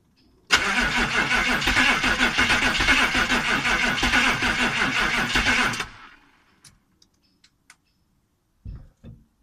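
1989 Chevrolet G20 van's 6.2 L diesel V8 cranked by its starter for about five seconds. The cranking stops abruptly and the engine does not keep running: a hard start after standing for a year, with a new fuel transfer pump and freshly bled fuel system. A few faint clicks and two short low thumps follow near the end.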